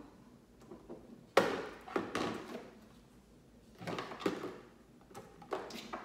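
Mini fridge door opened by hand, with a sharp knock about a second and a half in, then rattling. More knocks and rattles come around four seconds in as products inside are moved about.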